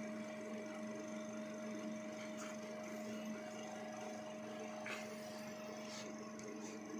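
Steady machine hum holding two constant tones, with a few faint clicks about two and a half, five and six seconds in.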